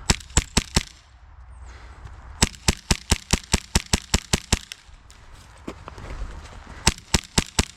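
HPA-powered airsoft pistols firing in quick strings of sharp shots: a short burst at the start, a longer run of about a dozen shots around the middle, and another burst near the end.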